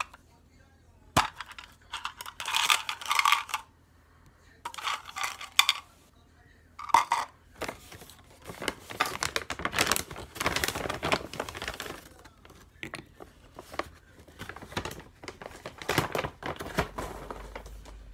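Plastic packaging crinkling and rustling in irregular bursts as chocolates are unwrapped and walnuts are taken from a large plastic bag, with a few light clicks of pieces dropped into a plastic yogurt cup.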